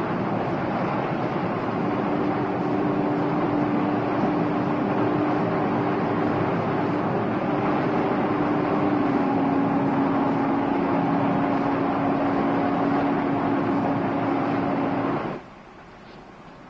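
Boat engine running steadily under the rush of water and wind, with a steady low tone held through most of it; the sound cuts off abruptly about a second before the end, leaving a much quieter background.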